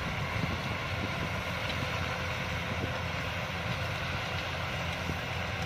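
Yanmar YH-850 combine harvester's diesel engine and threshing machinery running steadily.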